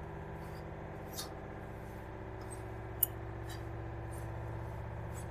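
A hand working dry wheat flour in a stainless steel bowl: faint soft scratching and rustling, with one sharp click about three seconds in, over a steady low hum.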